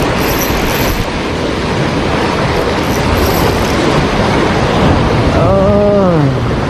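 Heavy surf breaking and washing against the shore, a loud continuous rush, with wind buffeting the microphone. Near the end, a short voiced sound from a person that rises a little and then drops in pitch.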